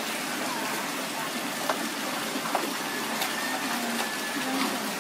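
Knives scraping the hair off a wet pig carcass, with a few sharp scrape clicks over a steady rush of running water and faint voices in the background.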